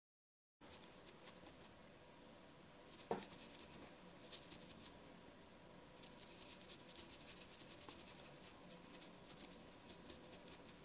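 Faint, fine scratchy patter of a small bristle brush dabbing stain into the cuts of a chip-carved wooden board, with one sharper tap about three seconds in.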